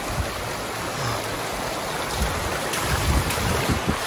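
Shallow rocky mountain creek rushing steadily around a runner wading through it, with irregular low thumps in the second half.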